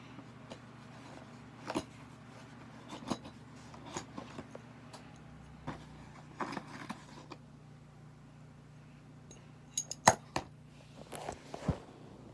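Packaging and small parts handled during an unboxing: scattered clicks, taps and light scrapes, the sharpest clicks about ten seconds in.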